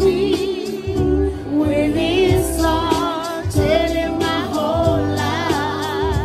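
A woman singing live into a microphone with a wide vibrato on held notes, accompanied by an electric keyboard playing chords and a bass line.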